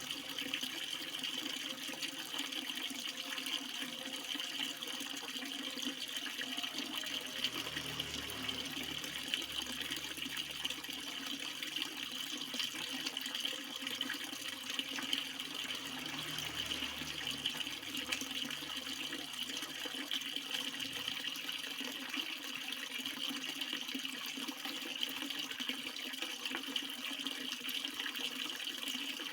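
Water flowing steadily, a continuous even rush and splash.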